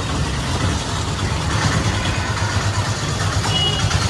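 Heavy diesel engine of earth-moving machinery running steadily, with a brief high squeal about three and a half seconds in.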